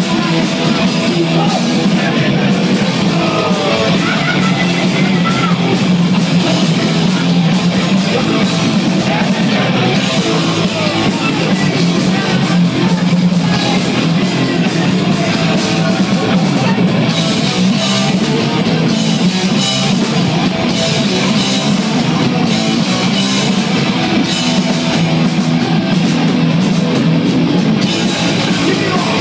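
Heavy metal band playing live and loud: electric guitars, bass guitar and drum kit in a dense, unbroken wall of sound.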